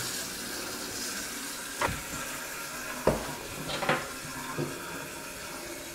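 Toilet tank filling with water through its fill valve for the first time, a steady hiss of running water. Several sharp knocks and clicks stand out over it between about two and five seconds in.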